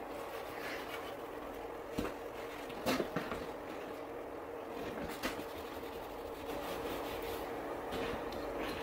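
A steady hum, with a few light clicks and knocks of tools and a bottle being handled on a truck's cab roof, including a short cluster about three seconds in.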